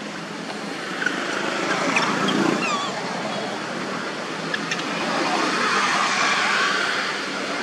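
Steady rushing outdoor background noise, with a few faint, short falling squeaks from a baby macaque about two to three seconds in.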